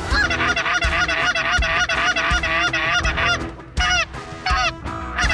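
Geese honking: many rapid, overlapping calls, with a short lull about three and a half seconds in.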